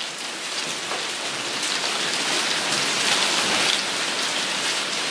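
Rain falling steadily, an even hiss of drops.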